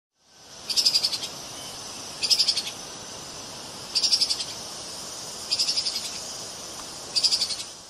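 Treeshrew (Tupaia) calling: five short, rapid pulsed trills, each about half a second long, repeating about every second and a half over a steady background hiss.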